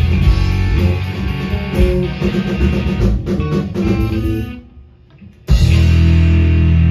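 Live rock band playing with electric guitars, bass and drums. About four and a half seconds in the music falls away almost to silence for a second, then comes back at once as a loud, held chord over a sustained bass note.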